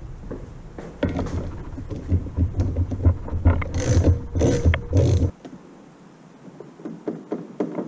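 Trolling motor propeller nut being loosened with a hand tool: about four seconds of dense metallic clicking and rattling that stops abruptly, then lighter scattered clicks as the nut and propeller are worked off by hand.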